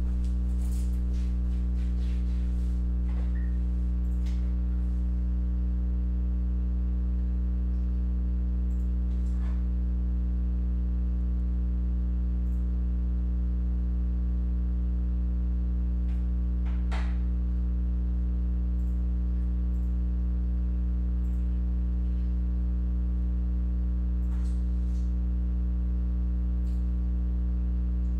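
A steady electrical hum with a stack of overtones, unchanging throughout, with a few faint, scattered clicks and rustles.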